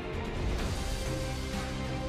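Background music with held low notes and a regular beat.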